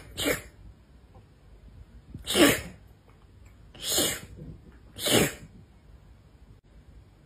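A string of short, sharp sneezes: four, coming one to two seconds apart.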